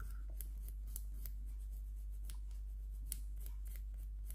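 Faint, short, irregular scratches of a coarse nail file rubbed across a fingernail, scuffing the nail surface before press-on nails are applied.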